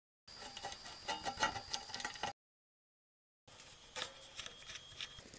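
Small screwdriver turning screws in a clock's metal back plate: irregular light metallic clicks and scrapes, in two short stretches with a silent gap between.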